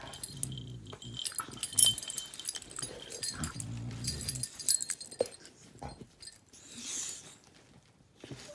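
A boxer and another dog play-wrestling on a bed: low growling in two stretches of about a second each, with collar tags jingling and bedding rustling.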